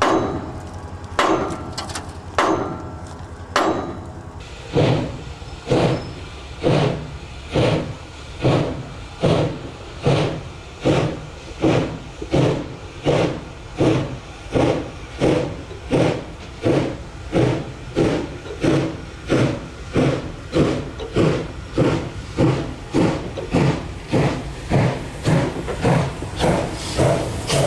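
A few sharp metal knocks, like hammer blows on the locomotive's fittings. About four seconds in they give way to a steam locomotive's exhaust chuffing steadily, about one and a half beats a second, as it works slowly along the track.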